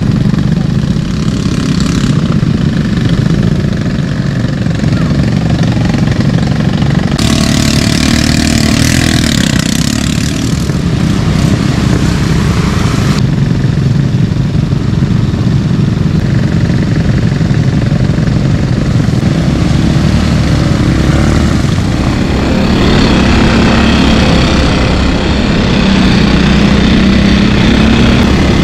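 ATV engine running close by, mostly at a steady low idle, with a loud hissing rush for several seconds partway through. Near the end the engine revs up and gets louder as the vehicle pulls away.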